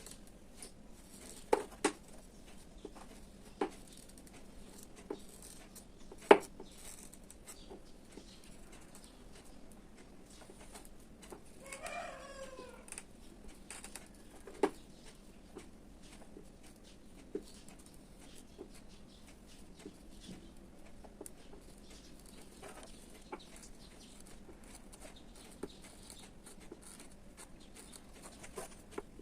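Scattered light knocks and clicks as the cracked plastic body of a vacuum cleaner is handled and worked on for repair with a soldering iron. About 12 s in, a chicken clucks briefly in the background.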